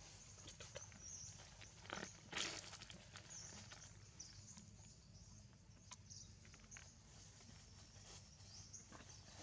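Faint outdoor ambience with scattered faint high chirps and a brief rustle about two seconds in.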